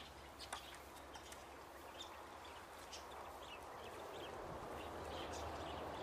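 Goats nibbling and chewing food from a hand, with soft rustling that swells in the second half and many small crackling clicks, over a quiet outdoor background.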